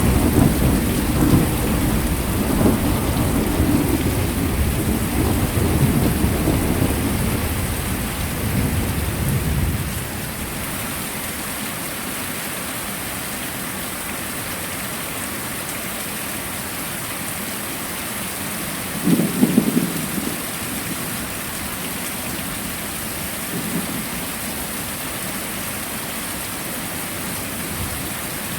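Heavy rain hissing steadily, with a thunder rumble over the first ten seconds or so that dies away. A short low rumble follows about two-thirds of the way through.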